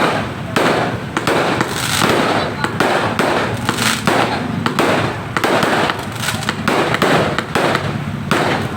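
Fireworks and firecrackers going off in a dense, continuous barrage of sharp bangs and crackling, many reports a second.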